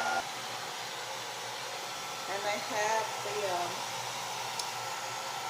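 Bonnet hood hair dryer running with a steady rush of air.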